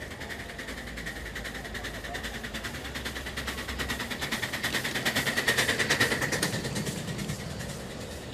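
Rapid, even exhaust beats of a live-steam model locomotive, about seven chuffs a second, growing louder to a peak about six seconds in and then fading as it passes. A thin steady high tone runs alongside.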